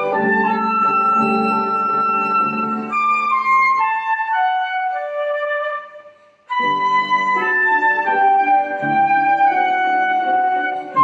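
Flute playing a waltz melody with piano accompaniment. About halfway through, the flute steps down through a phrase on its own and there is a brief break before flute and piano come back in.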